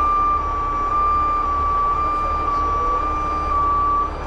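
Continuous high-pitched warning alarm of a heavy wrecker's crane as the boom rotates. The tone steps back and forth between two close pitches about twice a second, over the low rumble of the truck's diesel engine running.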